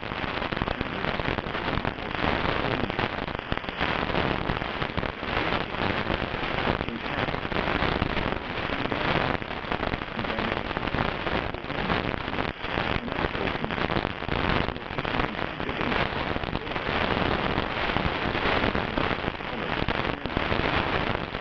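Steady, dense crackling noise with no speech over it.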